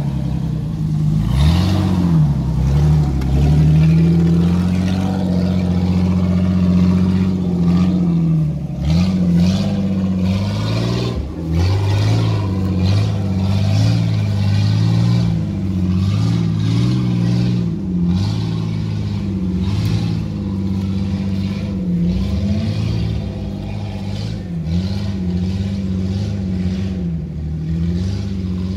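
Jeep Cherokee XJ's 4.0-litre straight-six engine revving up and down again and again as the vehicle crawls off-road under load, with occasional knocks and clatter.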